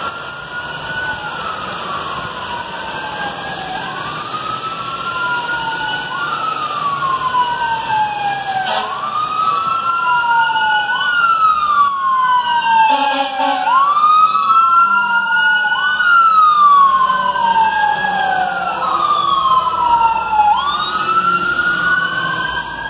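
Fire truck sirens wailing, two of them rising and falling in pitch out of step with each other, growing louder as they approach.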